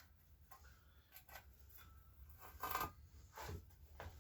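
Faint handling noises as a belt and its rivet washers are worked by hand: light rustles and small clicks, with two louder rubbing scrapes past the middle.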